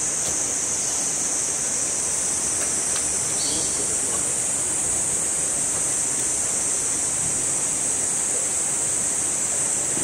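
Steady rush of water from a gorge stream and waterfall, with a constant high-pitched hiss over it.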